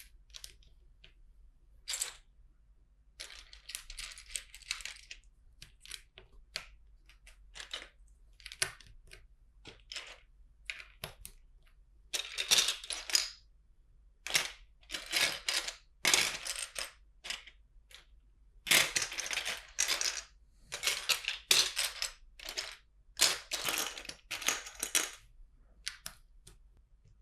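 LEGO bricks clattering and clicking as loose pieces are picked through on a table and pressed together, an irregular string of short clicks and rustles that grows busier in the second half.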